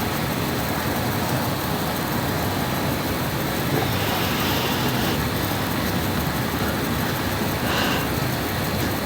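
A sleeping woman snoring: a low, rough rumble over a steady background noise.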